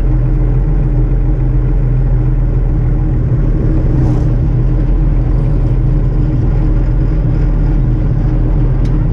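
Old combine harvester running steadily on its first start-up of the season, a constant low engine and machinery hum with no knocks or odd noises.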